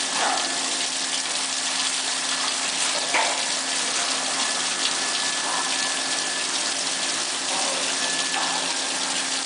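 Steady rush of quench water spraying in a CNC induction hardening machine, with a steady electrical hum running under it.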